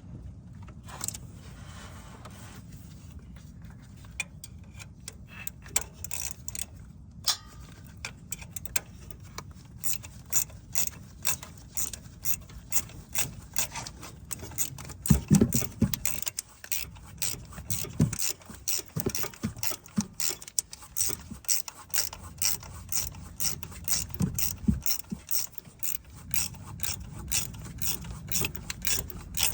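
Hand ratchet wrench clicking in a steady run, about two clicks a second, as a bolt is worked, with a few heavier knocks of the tool against metal partway through.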